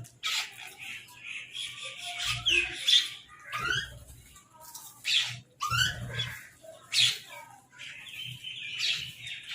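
Crows squawking, with harsh calls coming every second or so and higher chattering between them, plus a few low thumps.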